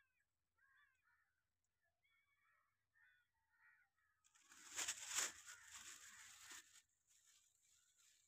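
Faint birds calling in short chirpy notes, then about four seconds in a loud rustling burst lasting two to three seconds, the loudest sound here.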